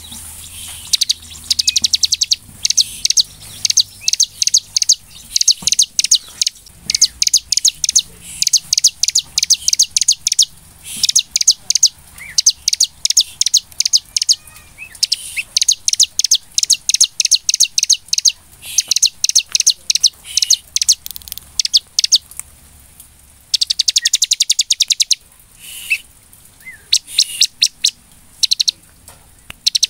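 Bar-winged prinia (ciblek) singing vigorously: fast trills of high, rapid repeated notes in bursts of about a second, with short pauses between.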